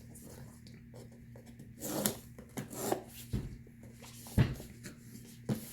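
The JBL Flip 4's retail box being handled and opened: a handful of short scrapes and rustles of packaging, with a sharper knock about four seconds in.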